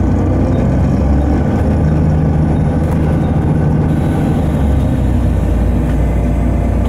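Volvo B7TL double-decker bus under way, its Volvo D7C six-cylinder diesel giving a loud, low drone heard from inside the passenger saloon, with road noise.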